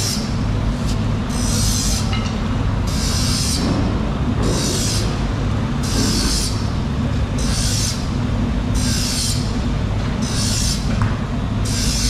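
Stiff push broom scrubbed over a wet fish carcass, a hissing swish with each stroke about once a second, over a steady low hum.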